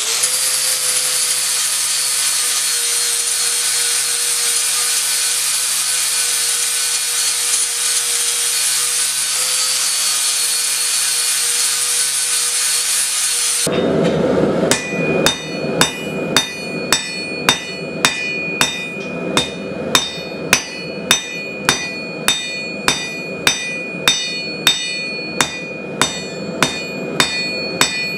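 An angle grinder runs steadily against steel, grinding down MIG weld beads. About halfway through it gives way to a hand hammer forging steel on an anvil, about two ringing blows a second.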